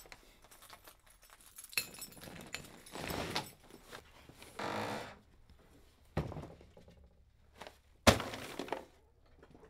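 Handling noises of a man coming in a door with a paper grocery bag: bag rustling, the door opening and shutting, and several knocks. One sharp, loud thud comes about eight seconds in.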